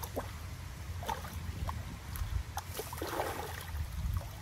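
Shallow pond water sloshing and splashing around a person's legs as she wades to the bank and climbs out, with a few short scattered sounds and a slightly louder splashy patch about three seconds in, over a steady low rumble.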